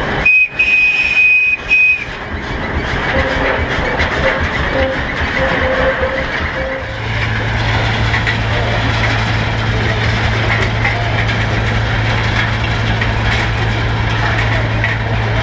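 Steam engine whistle giving one loud, steady high blast of nearly two seconds at the start, over the hiss of the working engine. About seven seconds in, a steady low drone sets in and holds.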